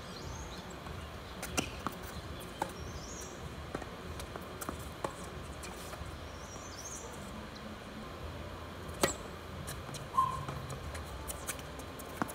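Tennis balls struck by rackets and bouncing on a hard court: sharp pops at irregular intervals, the loudest about nine seconds in, with birds chirping faintly in the background.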